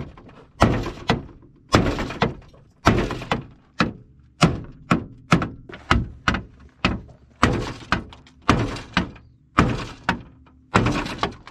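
Repeated hard knocks on the car's front-end metal, about two a second, as mechanics work to free the damaged radiator.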